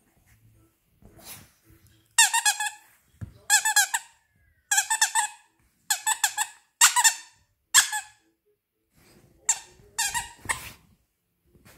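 Squeaker in a plush monkey toy squeezed over and over: about nine high squeaks, each under a second long, with a short pause before the last few.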